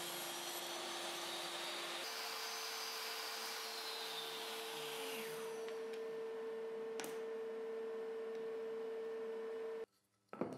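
Bench table saw running steadily while a sled carries a clamped plywood piece through an angled crosscut. The hum steps up in pitch about two seconds in, a higher whine falls away over the next few seconds, and the sound cuts off suddenly near the end.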